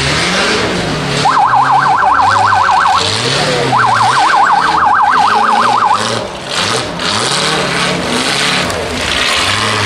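Off-road race buggy engines revving as they climb through dirt and snow. Over them sound two bursts of a fast warbling siren, each lasting one to two seconds.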